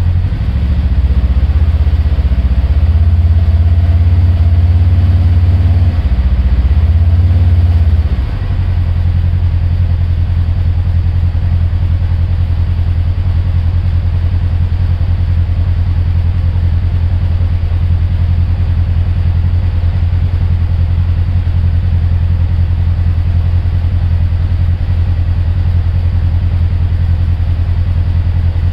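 Polaris General XP4 1000's ProStar twin-cylinder engine idling while parked, a steady low hum. It runs louder and fuller for the first eight seconds or so, then drops abruptly to a steadier, lower idle.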